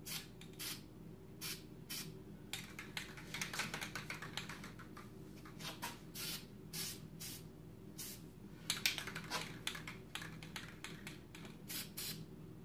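Aerosol can of white spray paint hissing in many short bursts as a light coat is sprayed onto the sides of a phone case.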